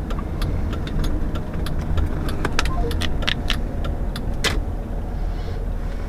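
Car cabin noise while driving slowly: a steady low engine and road rumble, with frequent light, irregular clicks and rattles.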